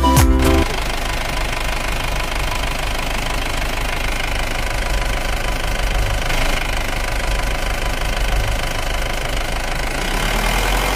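Intro music cutting off about half a second in, then an engine running steadily with a fast, even knocking rhythm.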